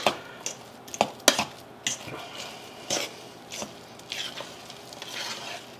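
A fork lightly tossing soft potato filling in a stainless steel mixing bowl: soft scraping and squishing with irregular clicks of the tines against the bowl.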